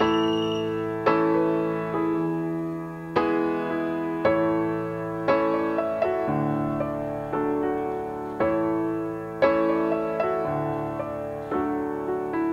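Background piano music: a slow tune of notes struck about once a second, each fading before the next.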